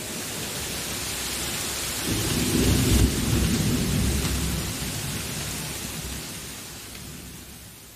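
Steady rain with a roll of thunder, loudest about two to four seconds in, then the whole storm fading out toward the end.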